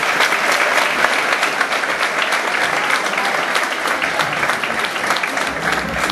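Audience clapping and applauding steadily, a dense patter of many hands.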